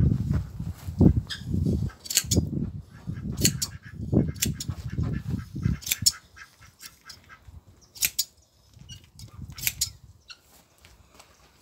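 Hand blade shears snipping through a sheep's fleece: irregular sharp metal clicks of the blades closing, several in a row, with low rustling in the first half.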